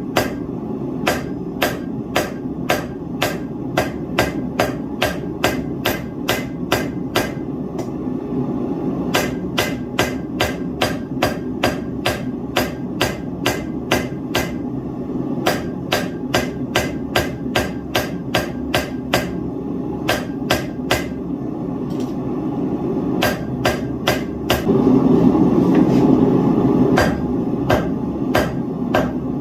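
Blacksmith's hammer forging hot steel on an anvil: a steady run of ringing blows, about two to three a second, with a few short pauses. A steady low rumble runs underneath and swells for a couple of seconds near the end.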